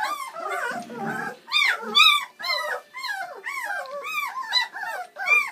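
Bernese Mountain Dog puppies whimpering and squealing: a quick run of short, high-pitched cries that rise and fall, several overlapping, about two or three a second.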